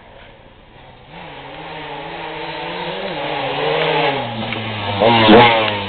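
Enduro motorcycle approaching and passing close by, its engine revving up and down through the gears. It is loudest about five seconds in as it goes past, then fades as it moves away.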